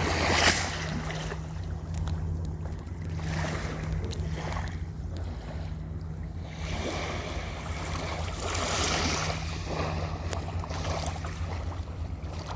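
Ocean waves washing in and drawing back in swells every few seconds, the loudest about half a second in, over a steady low rumble.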